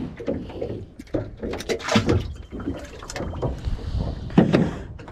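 Irregular knocks, bumps and clatter of fishing gear being handled in a small boat, with a louder thump about four and a half seconds in.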